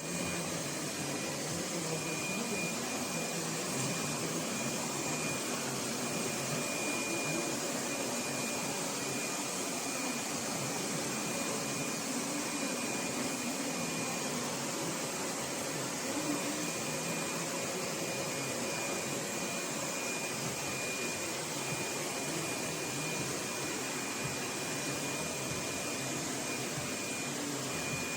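LEFANT M310 robot vacuum running, with a steady suction whirr and a faint high whine over it.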